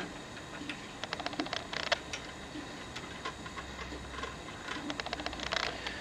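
Small metallic clicks and ticks of a 4mm Allen key working the headset top cap bolt, which threads into the compression nut in the steerer tube. The clicks come in a few short clusters.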